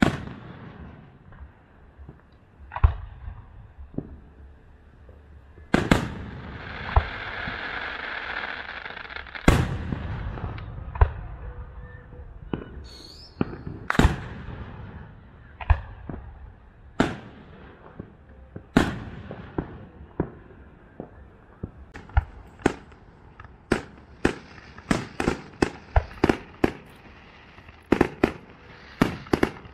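Aerial fireworks shells bursting: sharp bangs at irregular intervals, sparse at first and coming one or two a second toward the end, with a few seconds of steady hiss after one of the early bangs.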